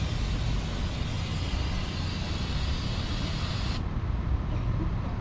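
Aerosol can of brake cleaner spraying in one long hiss of about four seconds that stops sharply, over a steady low rumble.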